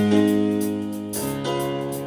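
Live rock band playing: sustained keyboard chords over electric bass, with cymbal strokes from the drum kit. The chord changes about a second in.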